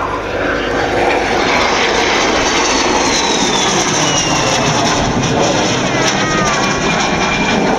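De Havilland Vampire jet flying past with its Goblin turbojet running: a loud, steady rush of jet noise. High whines fall in pitch twice, a few seconds in and again near the end, as the aircraft passes.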